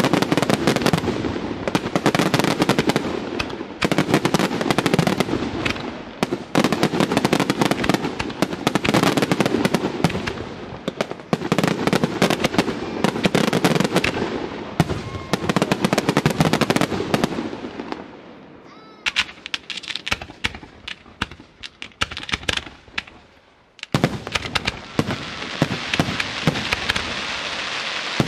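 Aerial fireworks display: a dense, continuous barrage of bangs and crackling, thinning about 18 s in to separate sharp reports with short lulls between them. From about 24 s a steady crackle sets in, with pops as shells burst.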